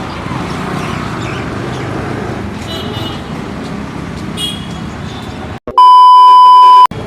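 Steady outdoor street noise with a background haze of traffic. Near the end it cuts out briefly and a loud, steady beep tone sounds for about a second: an edited-in censor-style bleep.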